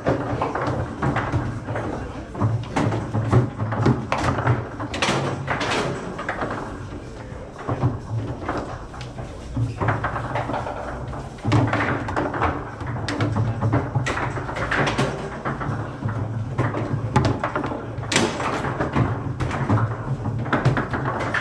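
Foosball table in play: sharp, irregular clacks and bangs as the ball is struck by the rod figures and hits the table's walls. Behind them are background voices and a low steady hum.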